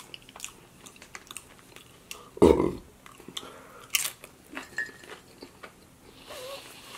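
Close-miked chewing of a forkful of a Chipotle burrito bowl: wet mouth sounds with small clicks, a louder smack about two and a half seconds in and a sharp crisp click about four seconds in.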